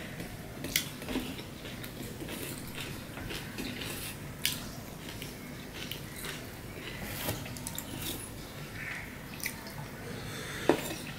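Close-up eating sounds: wet chewing and mouth noises, with scattered small clicks and scrapes of fingers on a stainless steel plate.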